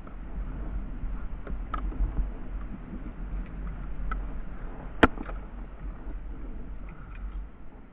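Wind rumbling on the microphone over water sloshing around a plastic kayak. A few light clicks and one sharp knock about five seconds in come from handling a spinning rod and reel on the kayak.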